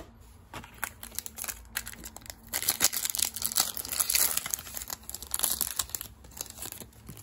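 Foil wrapper of a Yu-Gi-Oh booster pack crinkling and tearing as it is handled and opened, a dense run of crackles that is loudest in the middle.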